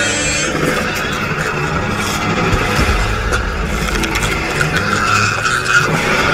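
Animated creature sound effects: a small dinosaur's high, howling call ends about half a second in, followed by a low rumble with harsh screeching noise over it.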